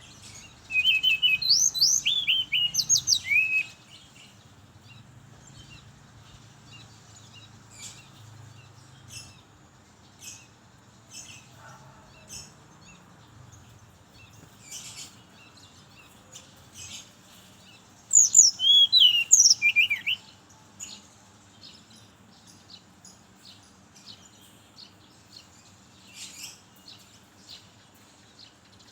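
Brown-chested jungle flycatcher singing: two loud phrases of quick, sliding whistled notes, one about a second in and one about two-thirds of the way through, with faint chirps in between.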